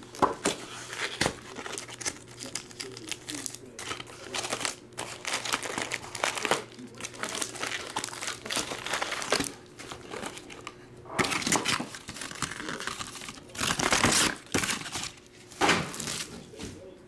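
Foil-wrapped Donruss Optic basketball card packs crinkling as they are lifted out of the box and stacked, in irregular rustling bursts, with louder bursts in the last third.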